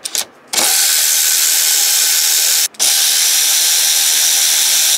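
Power driver with an 8 mm Allen bit running steadily twice, with a brief stop between, spinning out the two front brake caliper bolts.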